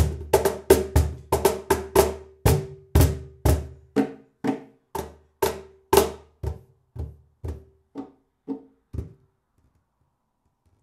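Schlagwerk CP130 X-one 'Styles' cajon played with the hands: a fast run of strokes that thins to about two strokes a second from about three seconds in, each stroke quieter, until it stops about nine seconds in.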